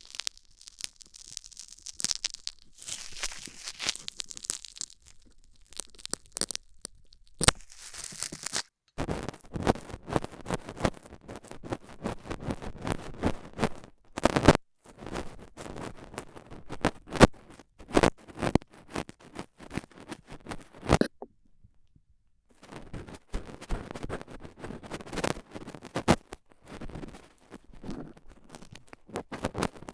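Stainless steel dental tool scraping and scratching in an ear canal close to the microphone: a dense run of crackling scratches and sharp clicks, light and high-pitched at first, growing fuller and louder about a third of the way in, with a brief pause about two-thirds through.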